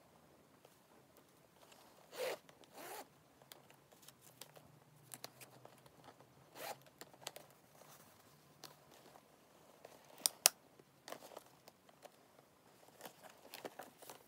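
Metal zipper on a leather handbag's inside pocket pulled in a few short strokes, two close together about two seconds in and another near seven seconds. Light handling of the bag follows, with two sharp clicks about ten seconds in, the loudest sounds.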